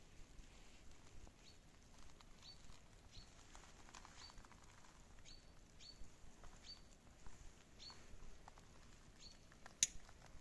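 A small bird calling faintly over and over: short high chirps that drop in pitch, about one a second. A single sharp click sounds near the end.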